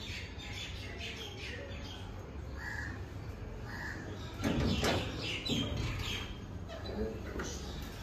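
Crows cawing a few times with smaller birds chirping, and a brief louder noise about halfway through.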